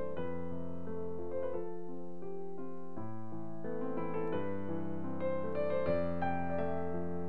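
Background piano music: a slow melody over sustained chords.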